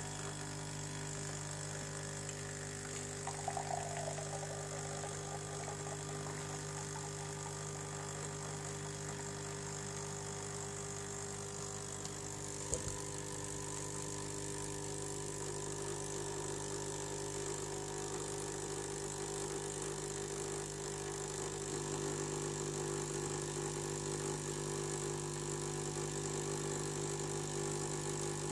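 A Nescafé Dolce Gusto Mini Me capsule machine's pump runs steadily with a low hum, forcing hot water through a milk capsule to dispense frothed milk into a glass. There is a brief gurgle a few seconds in and a single click about halfway, and the pump gets slightly louder near the end.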